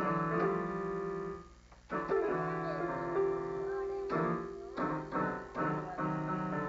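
Electronic keyboard bashed with a small child's hands: clusters of many notes struck together and left to ring, the first two held about two seconds each, then hit again about every half second toward the end.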